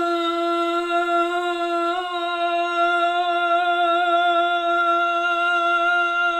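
A woman's voice singing one long, steady held note on 'dun', the drawn-out last note of a mock-dramatic 'dun dun dun' sting.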